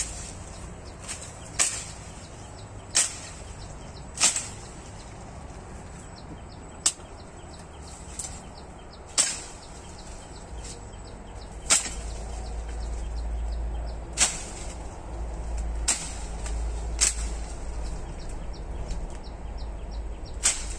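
Machete chopping through brush and branches: about a dozen sharp whacks at an uneven pace, a second or two apart.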